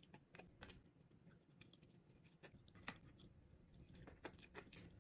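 Faint chewing of a mouthful of sushi: soft, irregular wet clicks, a little louder about three seconds in and again just past four seconds.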